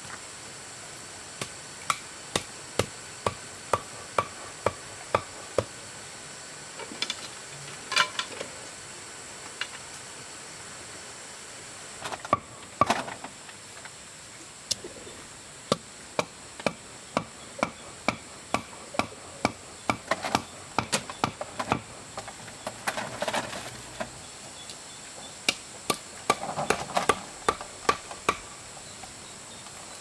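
Repeated sharp strikes of a hand tool on wood, about two a second, in several runs with short pauses between. A steady high insect drone runs underneath.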